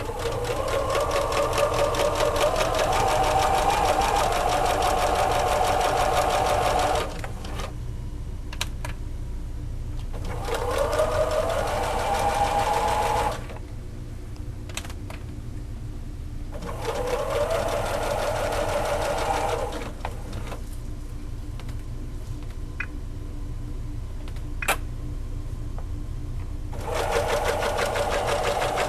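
Pfaff Creative 2170 computerized sewing machine stitching in four separate runs, the motor speeding up at the start of each run. Between runs it stops, leaving a steady low hum and a few sharp clicks.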